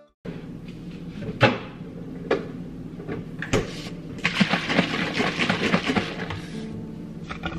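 Kitchen handling sounds: three sharp knocks, like things set down on a counter or a cupboard shutting, then about two seconds of crinkling as a packaging bag is opened and handled, over a low steady hum.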